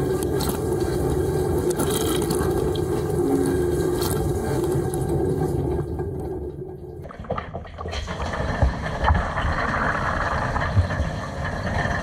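Water spraying and splashing inside a Bosch dishwasher during its rinse, heard from inside the tub, over a steady low hum from the wash pump. About six seconds in the sound drops away briefly, then returns splashier, with occasional thumps of water.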